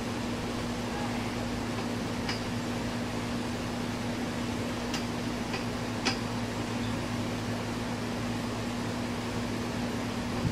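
Steady mechanical hum with a constant low tone, with a few faint clicks between about two and six seconds in.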